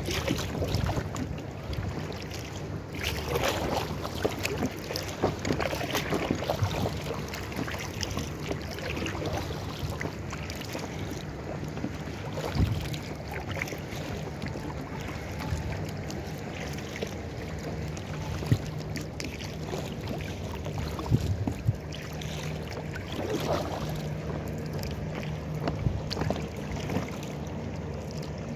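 Lake water lapping and splashing against the hull of an inflatable kayak, with irregular small knocks and splashes and wind on the microphone. A faint steady low hum runs underneath.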